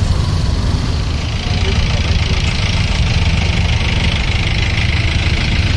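Vehicle engines idling and creeping in a traffic jam, a steady low rumble with no horns sounding.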